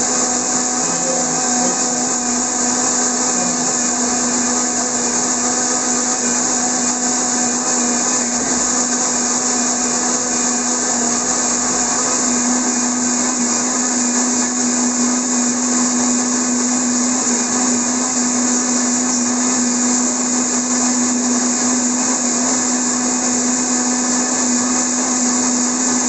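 Countertop blender running steadily with a loud, even motor whine, blending spinach, bananas and mango into a smoothie.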